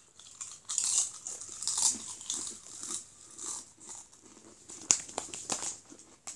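Doritos tortilla chips being bitten and chewed: irregular crunching, loudest in the first couple of seconds and thinning out toward the end, with one sharp crunch near the end.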